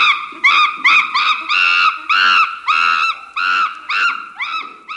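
Chimpanzee calling: a rapid series of high, arching calls, about two a second, that fades near the end.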